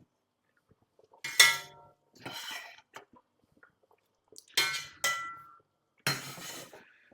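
Kitchenware clinking and clattering: about five separate knocks of utensils or dishes against a pot or bowl, each with a short metallic ring.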